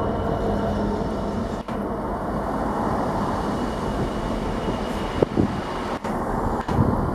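A train running through the station: a steady rumble with a low hum held throughout.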